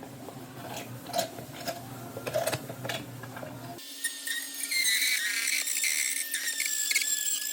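Light taps and scraping, then about four seconds in a small high-speed power tool starts and runs steadily at a high pitch while working drywall.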